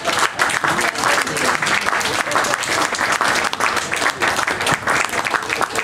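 Audience applauding: many people clapping continuously in a dense, even patter.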